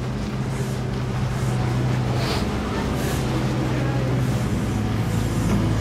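Steady low hum of a running engine from construction machinery.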